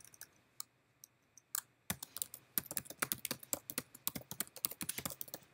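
Typing on a computer keyboard: a few scattered key presses, then a quick, continuous run of keystrokes starting about two seconds in.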